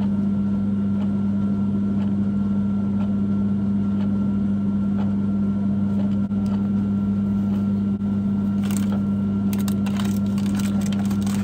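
A steady low electrical hum runs throughout. Over the last few seconds comes a spell of light crackling and crinkling as clear plastic packaging is handled around a purple oral syringe.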